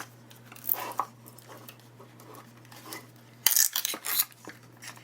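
Small plastic packaging being handled and opened: crinkly rustles and light plastic clicks, in a short cluster about a second in and a louder one around three and a half to four seconds in.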